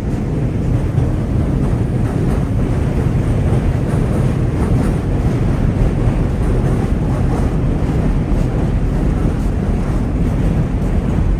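Wind buffeting the microphone: a steady low rumble of noise with no distinct events.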